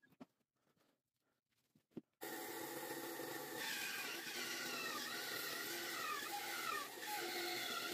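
A few faint knocks in near silence, then about two seconds in an electric band saw is heard running and cutting through a wooden log, a steady machine drone with a whine that wavers in pitch while the blade is in the wood.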